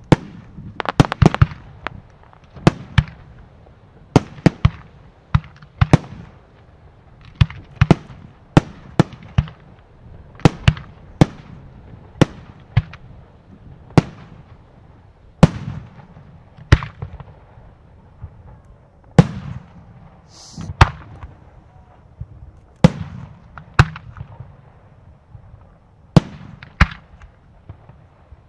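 Professional aerial fireworks display: shells bursting overhead in an irregular series of sharp bangs, about one or two a second, each trailing a short rumble.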